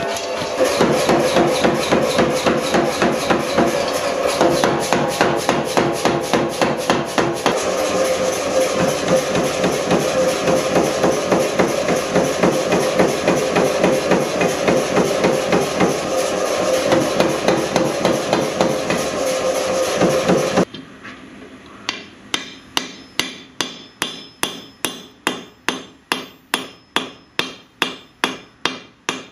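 Power hammer pounding a red-hot sword blade at a steady rate of about three blows a second. About twenty seconds in, the sound cuts to a hand hammer striking the hot blade on an anvil: quieter, ringing blows about two a second.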